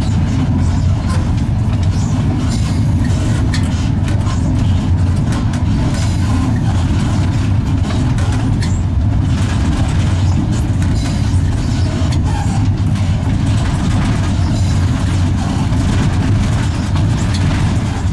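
East German LEW-built EL2 industrial electric locomotive running along the track, heard from its cab: a steady, loud low rumble with faint clicks and rattles over it.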